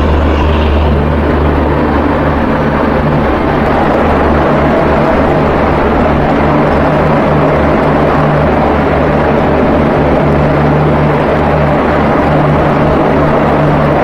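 Loud, steady rush of wind and wheel-on-rail noise heard from aboard the Gatiman Express running through at speed, with wind buffeting the microphone, while it passes another train on the adjacent track.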